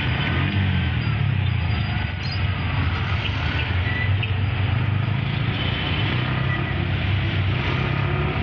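A vehicle engine running with a steady low drone in slow city traffic, with the noise of the surrounding traffic.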